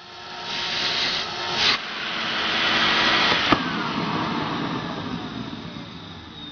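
Electrolux Lux canister vacuum cleaner's motor running and growing louder over the first three seconds. A sharp click comes about three and a half seconds in as the front lid is pulled open, and the motor then winds down with a slowly falling whine.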